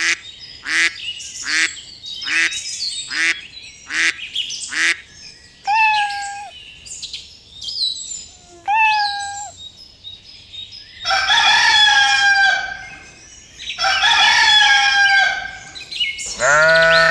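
Chickens and a rooster calling. It starts with a quick run of short clucks, then two single calls, then two long crows of about two seconds each near the end.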